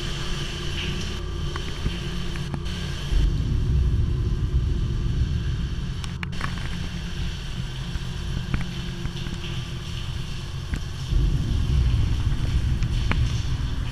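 Steady low rumble that grows louder about three seconds in and again near the end, with a few faint clicks.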